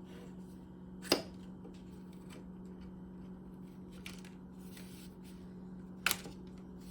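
Hands handling parts of a Macintosh during reassembly: faint rustling and rubbing, with two sharp clicks, one about a second in and one near the end. A steady low hum runs underneath.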